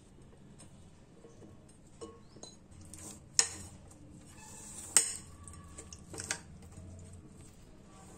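A few scattered clinks of a spoon and ceramic bowls, with two louder ones about a third of the way and midway through.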